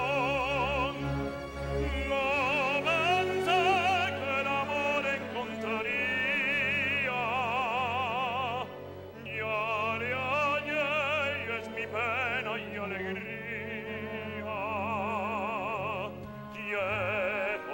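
Male operatic voice singing long phrases with wide vibrato over orchestral accompaniment. The voice breaks off briefly about nine seconds in and again near sixteen seconds.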